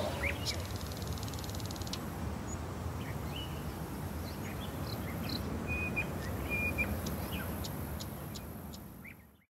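Scattered short bird chirps and brief whistled calls over a low rumble of background noise, fading out near the end.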